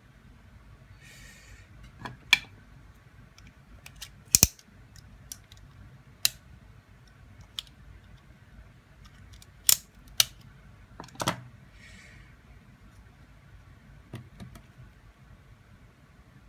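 Small plastic parts and hand tools clicking, snapping and tapping on a work surface during a smart-speaker teardown, with scattered sharp clicks. There are two brief scratchy rustles, one near the start and one about three-quarters of the way in.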